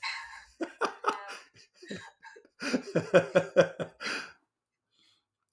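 A person's breathy exhale, then laughter in quick, evenly spaced voiced pulses, stopping a little after four seconds in.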